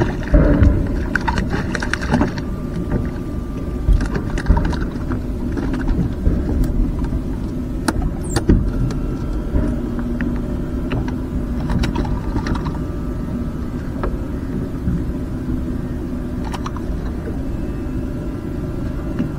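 Steady low rumble of wind and water around a fishing kayak, with scattered sharp clicks and knocks of gear being handled. A faint held hum runs through the middle.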